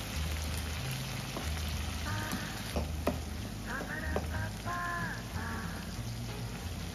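Sauce sizzling and bubbling in a frying pan, with a few short knocks of a spatula stirring shrimp-shaped mushroom pieces. Background music with a steady low beat and a melody joins in from about two seconds in.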